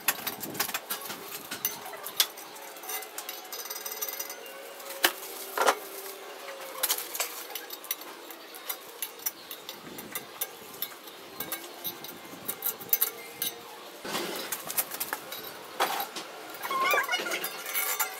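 Irregular small clicks and scrapes of a knife tip and fingernails picking a stencil off a rusted steel saw blade.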